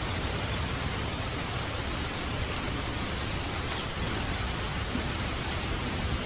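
Steady light rain falling, an even hiss with faint scattered drop ticks over a low rumble.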